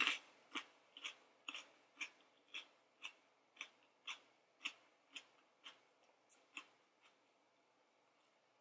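Person chewing a bite of raw mini sweet pepper, crisp crunches about two a second that fade away after about seven seconds.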